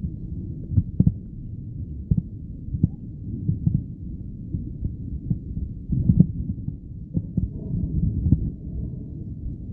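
Muffled underwater sound of swimming: irregular soft low thumps and churning water with no high sounds at all.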